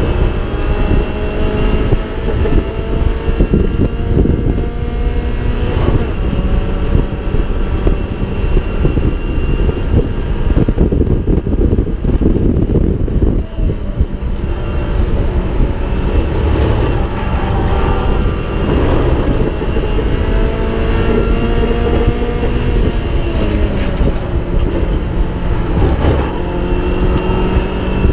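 Mazda MX-5 race car's four-cylinder engine heard from the onboard camera, its revs rising and falling over several seconds at a time, under heavy wind and road noise.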